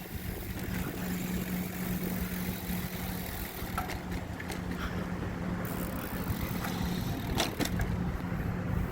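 A motor vehicle running, a steady low hum under rumbling noise, with a couple of short clicks near the end.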